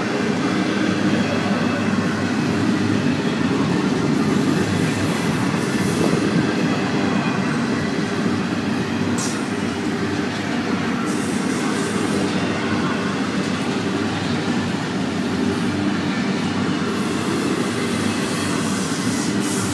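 Double-stack intermodal container cars of a freight train rolling past, a steady rumble of steel wheels on the rails. A brief high-pitched sound cuts through about nine seconds in.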